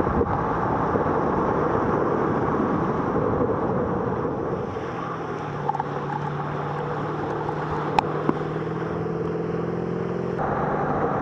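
Water rushing and spraying against an action camera skimming just above a water ski and the boat's wake, with wind buffeting the microphone. Under it runs the steady drone of the towing boat's engine. A few sharp ticks come around eight seconds in.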